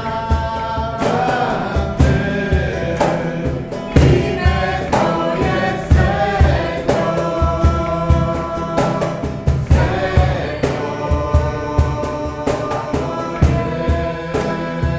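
A Croatian worship song sung live by a man and a woman together over a strummed acoustic guitar, with a steady percussion beat from a cajón.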